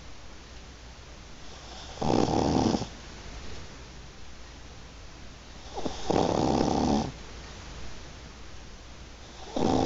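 Yorkshire terrier snoring in its sleep: three loud snores roughly every four seconds, each lasting about a second, the last one starting near the end.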